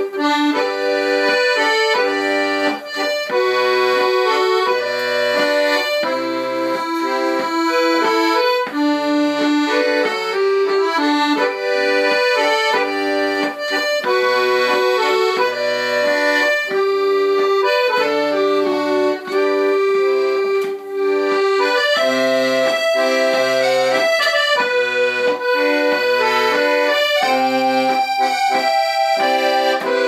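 Piano accordion playing a lively Irish traditional dance tune: a continuous right-hand melody over a steady left-hand bass-and-chord accompaniment.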